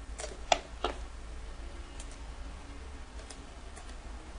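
Computer mouse clicking: three quick clicks in the first second, then a few fainter scattered clicks, over a faint low hum.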